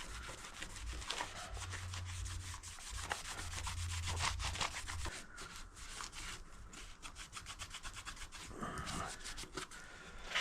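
Rag wiping over the inside of a plastic dirt-bike side panel, cleaning it with brake cleaner. The rubbing is quick and scratchy and keeps going as the surface is worked over.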